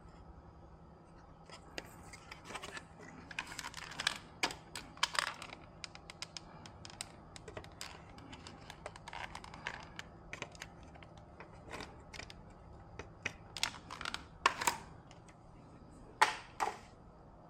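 Irregular clicks, taps and scraping of small hard objects being handled, with two sharper clacks near the end, over a faint steady hum.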